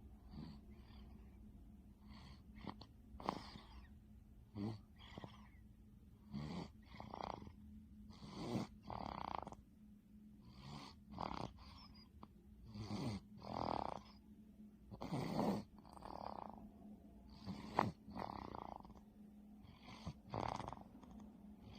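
A five-month-old baby snoring softly in deep sleep: short, breathy snores in and out, repeating about every two seconds.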